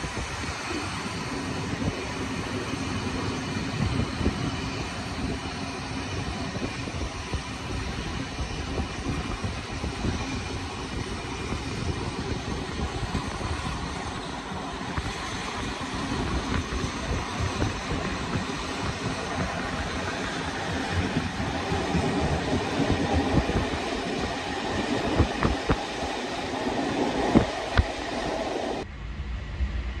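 Railway passenger coach rolling along the track, heard from inside: a steady rumble with clacks of the wheels over rail joints, growing gradually louder. Near the end it cuts abruptly to a low hum.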